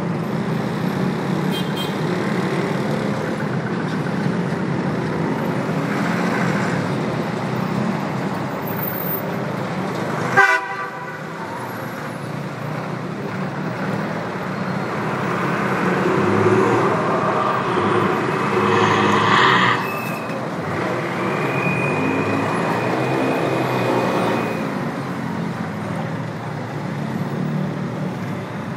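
Steady city avenue traffic: engines and tyres of cars and buses running past, with car horns sounding in the second half. A single sharp click is the loudest moment, about ten seconds in.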